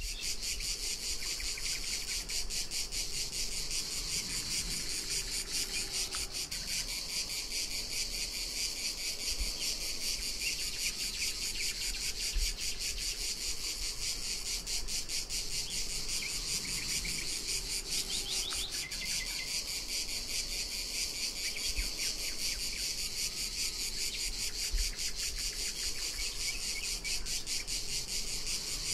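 Dense, steady chorus of cicadas, a continuous high buzzing made of very rapid pulses.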